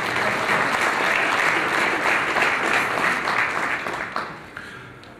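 Audience applauding, then dying away about four seconds in.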